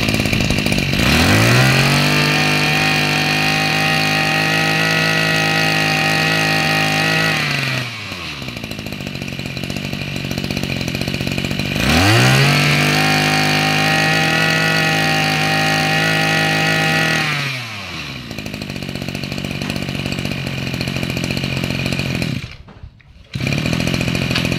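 Maru two-stroke brush-cutter engine running: it idles, is revved up and held at high speed for about six seconds, drops back to idle, and is revved and held again. Near the end it goes quiet for a moment, then idles again.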